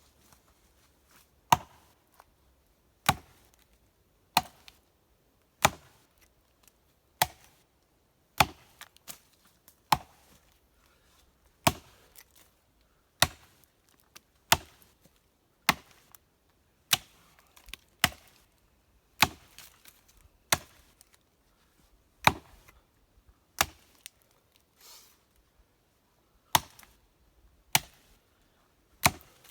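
Axe blows biting into a standing tree trunk, cutting the felling notch and chipping out wedge-shaped chips. About twenty sharp chops at a steady pace of roughly one every second and a half, with a short pause about three-quarters of the way through.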